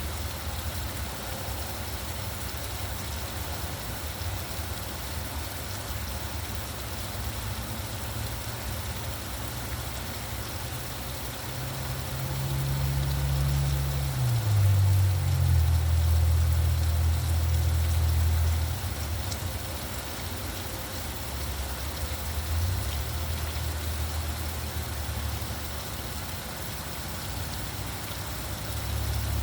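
Steady rain hiss with the low hum of vehicle engines in traffic. About halfway through, an engine grows louder for several seconds and its pitch drops once before it fades.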